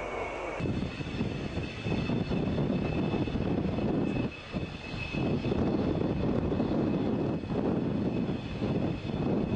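Dassault Mirage 2000's single SNECMA M53 jet engine running at low power while the fighter taxis: a steady high whine over a rushing noise.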